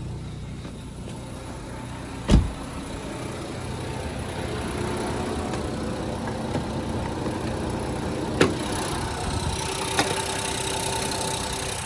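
2015 Ford Focus engine idling steadily. A thump comes about two seconds in, and two sharp clicks come later.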